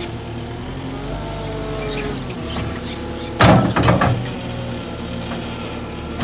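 Cat 277D compact track loader's diesel engine running steadily under load as its bucket works a pile of brush, dirt and logs. A loud crash about three and a half seconds in as the bucket hits the debris.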